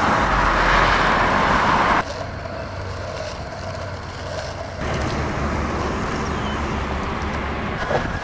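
Highway traffic noise, a steady rush of passing vehicles, changing abruptly about two seconds in and again near five seconds.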